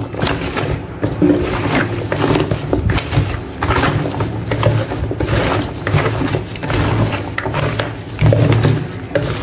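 Gloved hands squishing and rubbing seasonings into pieces of cow foot in a plastic bowl: wet squelching and rustling of meat and onion, with a low rumble that swells and fades roughly once a second as the bowl is worked.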